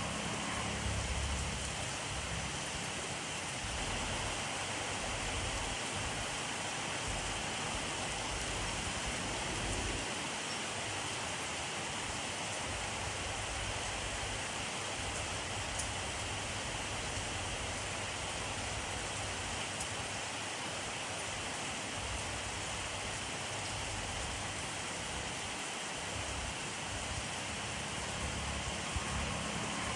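Steady rainfall: an even hiss of rain falling on surfaces, with a low rumble underneath that rises and falls.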